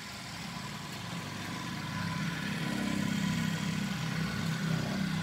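Shibaura D335 tractor's four-cylinder diesel engine idling steadily, growing louder about two seconds in.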